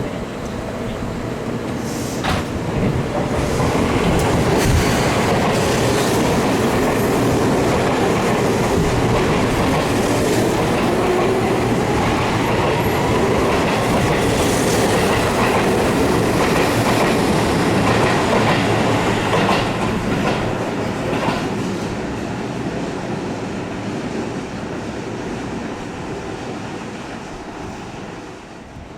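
Seibu Shinjuku Line electric commuter train running through the station, wheels clattering over the rail joints with some wheel squeal and a whine that glides in pitch midway. The sound builds about four seconds in and fades over the last several seconds as the train moves off.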